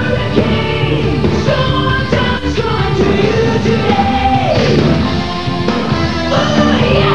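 Rock theme song with sung vocals over a full band, playing continuously.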